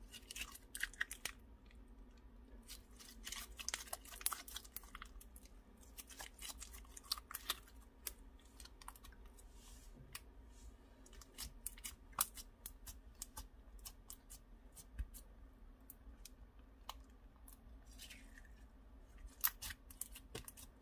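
Clear slime full of fruit-slice pieces being stretched, folded and pressed by hand. It gives faint sticky clicks and pops that come in clusters, with quieter gaps between.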